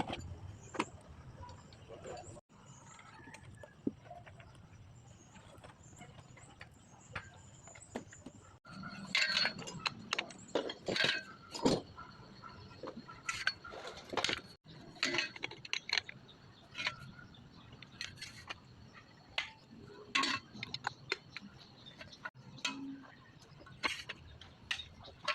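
Irregular sharp metallic clinks and taps, like hand tools and metal parts being handled and knocked together. They come sparsely at first and grow denser after about nine seconds.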